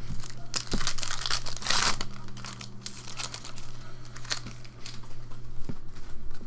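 Foil wrapper of a 2014 Upper Deck SP Authentic Football hobby pack crinkling and tearing open by hand, loudest at about two seconds in, with sharp clicks as the cards are handled.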